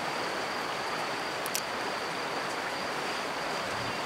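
Steady outdoor riverside ambience: crickets chirring in one steady high tone over an even rushing haze, with a single short click about one and a half seconds in.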